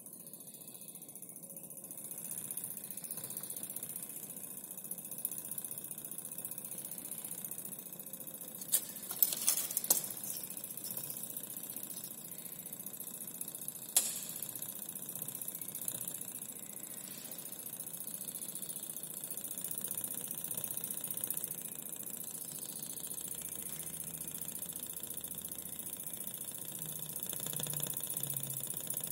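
Homemade thermal lag engine with a glass syringe piston, running with a rapid mechanical rattle, over the steady hiss of a gas torch flame heating the end of the glass tube. A few sharp clicks sound near the middle.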